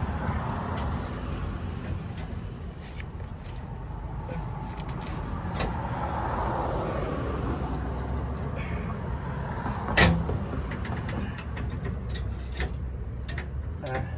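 Metal hardware being worked by hand on a truck bumper mount: scattered light clicks and one sharp metal knock about ten seconds in, over a steady low rumble.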